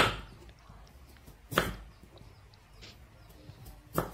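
Kitchen knife slicing through a peeled potato and striking a wooden cutting board: three sharp chops, spaced well apart.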